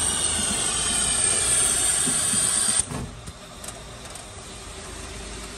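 Meat patty forming machine running with a steady mechanical whine and hiss. The louder part cuts off suddenly about three seconds in, leaving a quieter running noise with a few light clicks.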